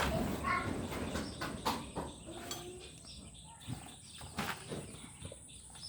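Scattered light clicks and knocks of hand tools and metal parts during work on a turbocharger installation.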